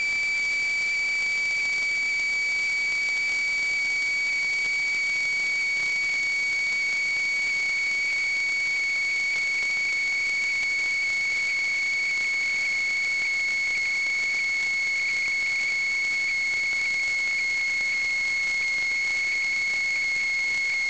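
Steady high-pitched electronic whine over a constant hiss, drifting very slightly lower in pitch, carried on a sewer inspection camera's recording.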